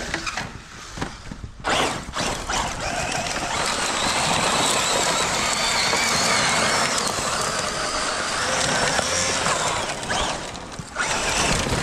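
Traxxas Maxx Slash RC short-course truck's brushless electric motor whining under throttle, with its tyres spinning and spraying dirt as it slides. The sound picks up about two seconds in, runs steadily, and dips briefly shortly before the end.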